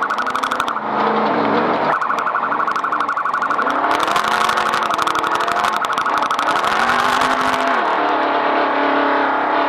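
Off-road race vehicle's engine running hard, its pitch rising and falling again and again as the throttle is worked over rough ground, with a rapid rattling pulse on top.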